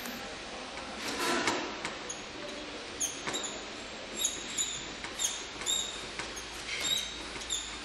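A screw being driven into the centre hub of a surgical operating light: a brief scrape about a second in, then short, high squeaks about twice a second as the screwdriver turns.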